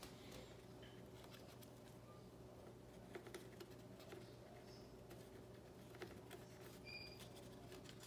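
Near silence with a low steady room hum. A baby African grey parrot makes a few faint scattered clicks at its seed and newspaper, and gives one short high chirp near the end.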